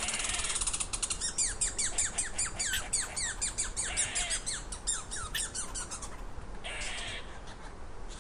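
A bird calling in a fast run of short, falling chirps, several a second, over a steady background hiss; the calls thin out about six seconds in.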